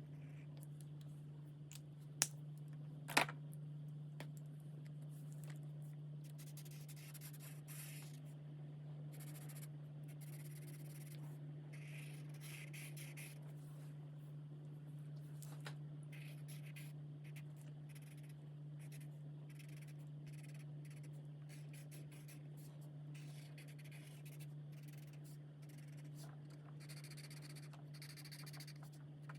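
Alcohol marker tips rubbing and scratching across coloring-book paper in short stretches of strokes, over a steady low hum. Two sharp clicks come a few seconds in.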